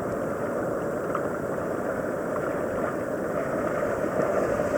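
Ocean surf and wind: a steady rush of water noise that swells a little near the end.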